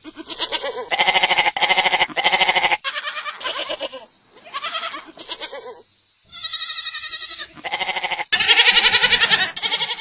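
Goats bleating in a run of quavering calls, one after another, with one much higher-pitched call about six seconds in.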